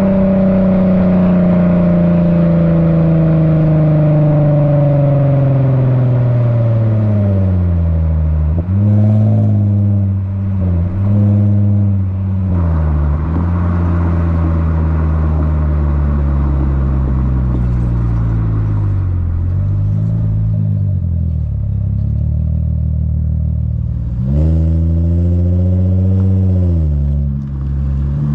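Lexus IS350's 3.5-litre V6 through an HKS Hi Power catback exhaust and Invidia midpipe, heard right at the muffler tip while driving. The engine note falls steadily for the first several seconds, rises and dips in a few short swells, settles into a steady low cruising note, then swells and falls again a few seconds before the end and starts climbing at the very end.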